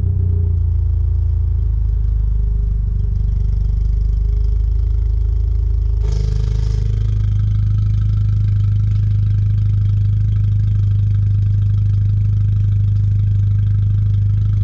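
An engine running steadily with a loud, even low hum. About six seconds in there is a brief hiss, after which the hum runs a little stronger.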